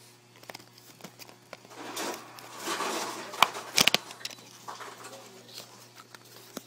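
Plastic packaging of a speed cube being handled and opened: crinkling and rustling about two seconds in, then a few sharp plastic clicks.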